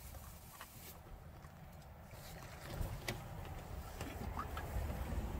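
Low rumble of a car moving slowly, heard from inside the cabin, growing louder about three seconds in, with a few light clicks.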